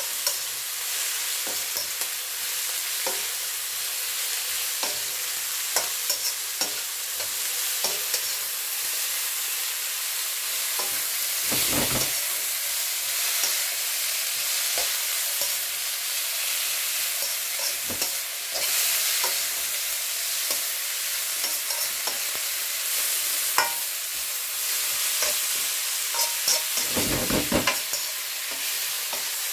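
Vegetables sizzling in a hot wok while being stir-fried, a steady hiss with the spoon clicking and scraping against the metal. Two duller knocks stand out, about twelve seconds in and near the end.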